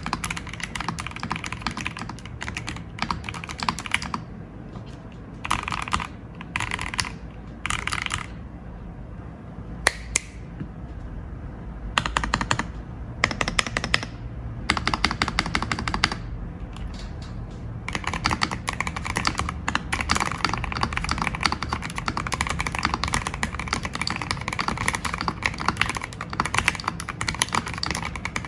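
Typing on a Keychron V5 Max mechanical keyboard fitted with Gateron Jupiter Red linear switches lubed with Krytox 205g0. The typing comes in bursts with short pauses through the first half, then runs as steady fast typing from about 18 seconds in.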